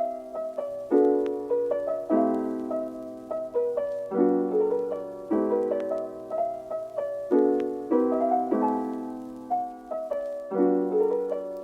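Background piano music: soft keyboard chords, a new one struck every second or two and each fading away.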